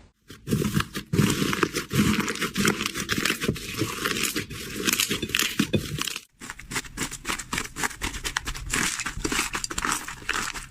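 Slime being squeezed and worked by hand, a dense run of crackling, popping clicks. It breaks off briefly about six seconds in, then carries on.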